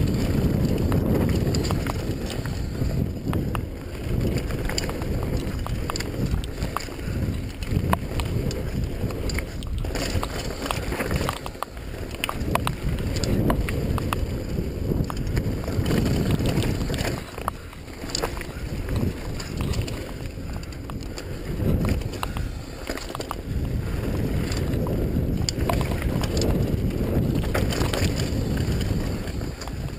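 Wind buffeting an action camera's microphone over the sound of a mountain bike rolling fast down a dry dirt singletrack, with many short clicks and rattles from the bike as it goes over bumps.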